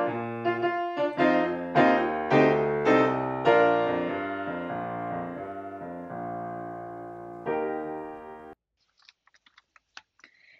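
Piano music: struck notes and chords in a slowing run, ending on a held chord that cuts off suddenly about eight and a half seconds in. A few faint clicks follow.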